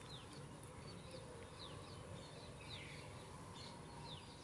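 Faint bird chirping: a string of short, quickly falling chirps repeating about every half second, over a faint steady low hum.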